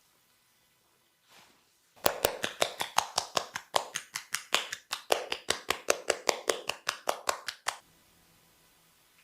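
Percussive hand massage: the barber's hands strike the client's body in a fast, even rhythm of sharp slaps, about six a second. The strikes start about two seconds in and stop abruptly after nearly six seconds.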